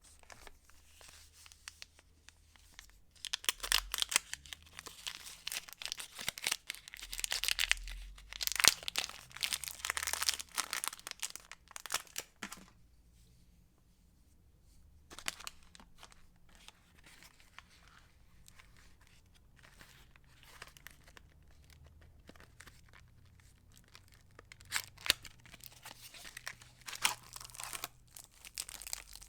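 Soap packaging torn open and crinkled by hand, in dense crackling bursts through the first half. Then comes a quiet stretch of faint rustles, and more crinkling near the end.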